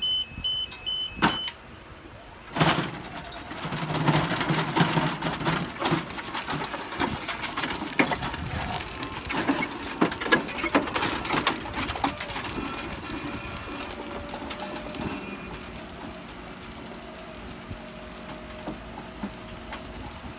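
Battery-electric Genie Runabout mast lift beeping briefly at the start, then driving across gravel. Its wheels crunch and its frame clatters loudly for several seconds, then the sound fades to a faint steady motor whine as it moves away.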